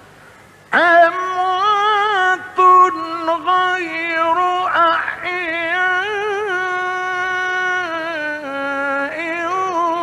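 A male Quran reciter chanting in the ornamented Egyptian mujawwad style. After a short pause his voice comes in a little under a second in and holds long notes that waver and turn in pitch.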